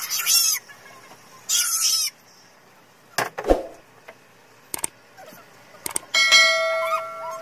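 Subscribe-button overlay sound effects: sharp mouse-style clicks, then a bright ringing chime about six seconds in that fades over about a second. Earlier come two short, high-pitched chirping bursts.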